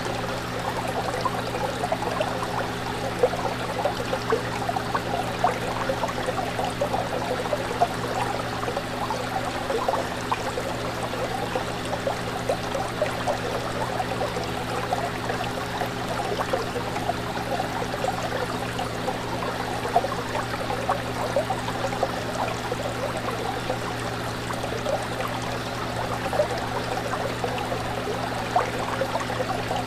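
Fish tank water bubbling and trickling without pause, over a steady low hum.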